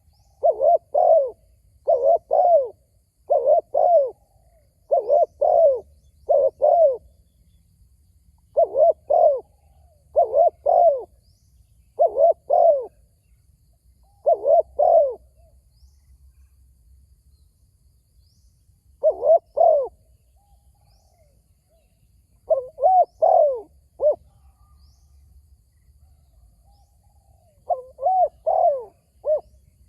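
Spotted dove cooing: short phrases of two or three coo notes repeated every second or two, with a few longer pauses in the middle.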